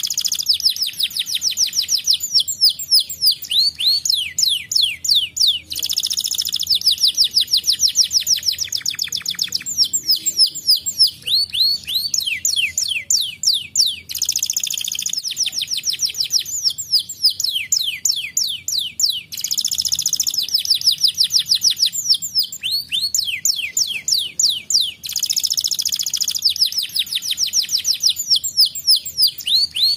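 Domestic canary singing a long, continuous song: rapid trills of fast descending chirps, many per second, alternating with buzzy rolling passages.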